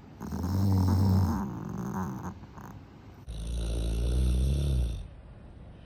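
Yorkshire terrier snoring in its sleep: two loud snores, the first lasting about two seconds and the second coming about a second later and lasting a second and a half.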